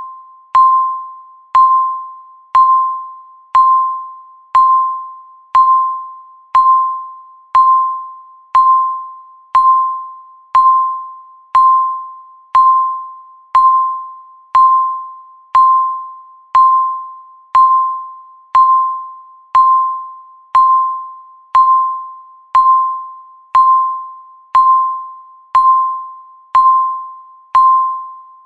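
Countdown timer beeping once a second: a single electronic tone of about 1 kHz, each beep starting sharply and fading before the next.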